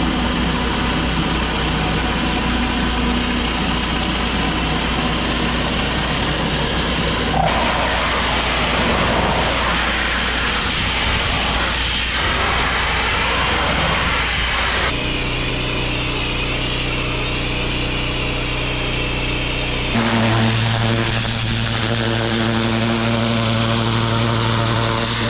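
A pressure washer's engine running steadily under the hiss of a high-pressure water jet, in several clips cut together. The tone changes abruptly about a third of the way in, again about halfway, and again near the end.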